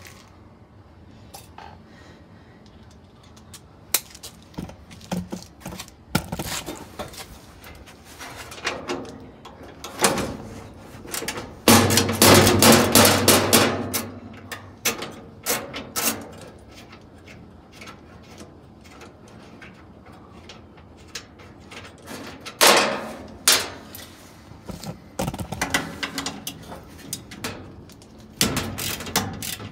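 Scattered metallic knocks, clanks and rattles of hands and tools working inside a 1974 Whirlpool belt-drive washer's steel cabinet, while it is being dismantled. There is a longer loud rattling stretch about midway, and near the end a ratchet wrench clicks on a bolt.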